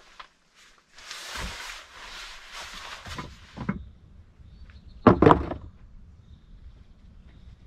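Rustling for a few seconds, then two loud knocks in quick succession about five seconds in, the kind of bang a wooden door makes.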